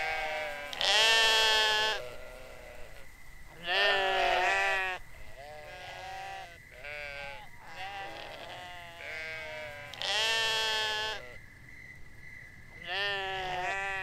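Farm animals bleating over and over, about eight wavering calls of roughly a second each, some overlapping. The loudest calls come about a second in and again after ten seconds. A faint steady high tone runs underneath.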